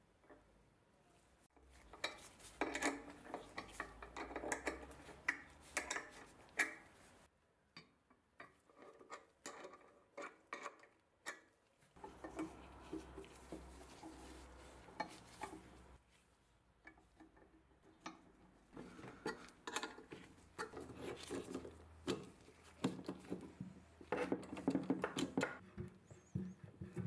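Metal parts of a can-sealing machine being handled and fitted together during reassembly: irregular clinks and taps of steel on cast iron, in several bursts with short pauses between.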